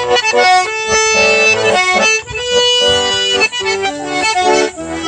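A small button accordion being played: a tune of changing notes over chords, with the bellows sounding several notes at once.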